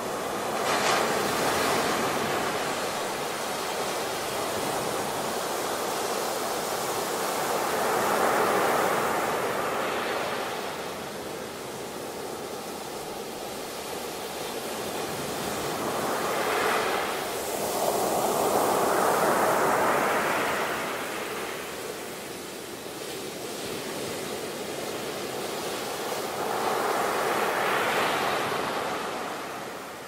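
Ocean waves breaking on a beach: a steady rush of surf that swells and falls back in four slow surges, roughly eight to ten seconds apart.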